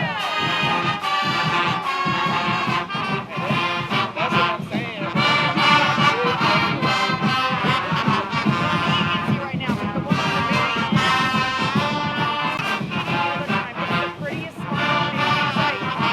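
Marching band brass section playing a tune over a steady drum beat, with crowd noise underneath.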